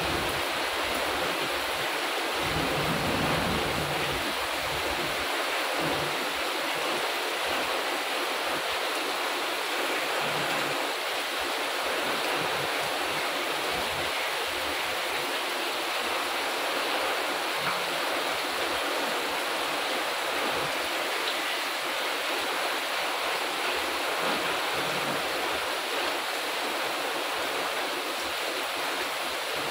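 Heavy rain pouring steadily onto garden plants and paving, a dense, even hiss that holds at the same level throughout.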